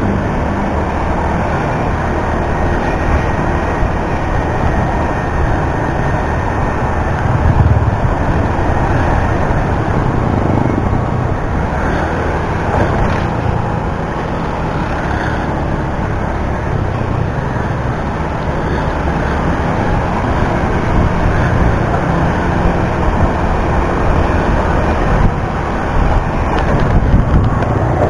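Motor scooter riding through town traffic: steady engine and road noise mixed with wind on the action camera's microphone.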